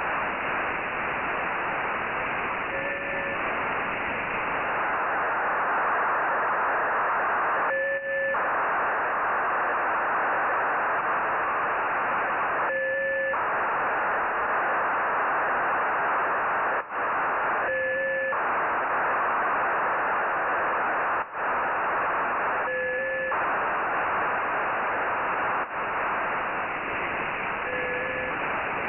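Nayif-1 (EO-88) satellite telemetry downlink received on a software-defined radio: a steady rushing digital data hiss, with a short change in the signal about every five seconds. A few brief dropouts break it in the second half.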